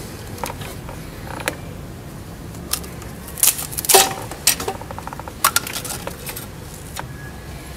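Scattered light metallic clicks and taps of engine parts or tools being handled, with a small cluster of them about three and a half to four seconds in.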